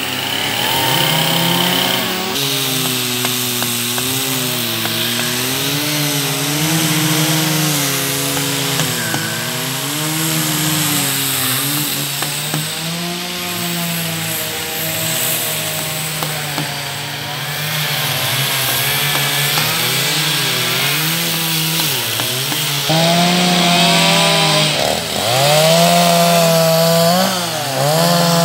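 Two-stroke chainsaw running and cutting into a wooden log, its engine pitch rising and falling as the carver works the blade in and out. Near the end it becomes louder and higher-pitched.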